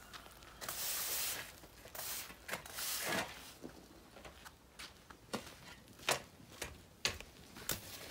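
Long-handled broom sweeping dry, dusty dirt ground in a few swishing strokes over the first three seconds or so. These are followed by scattered light clicks and knocks.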